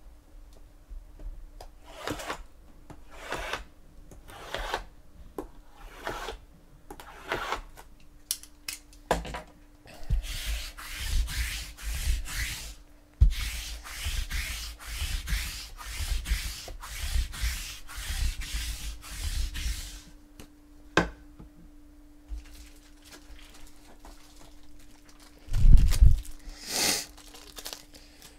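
Sticky lint roller rolled back and forth across a cloth table mat: a rasping, rubbing sound, slow separate strokes at first, then a quick run of strokes, about two or three a second. A louder rustle comes near the end.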